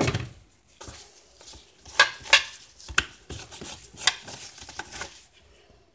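Kitchen utensils knocking and clicking: a string of sharp, irregular strikes, one right at the start and the loudest about two seconds in.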